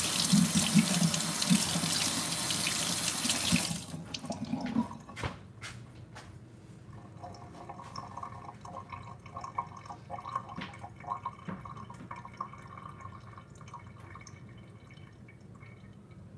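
Kitchen faucet running into a sink, shut off about four seconds in; after that, faint scattered knocks and clatter.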